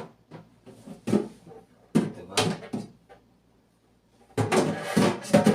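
Knocks and clicks of a new refrigerator's door and plastic fittings being handled: a few sharp knocks, a pause, then a denser run of handling noise near the end.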